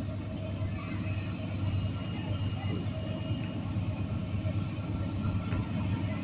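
Freight train rolling by with a steady low rumble of engines and wheels on the rails.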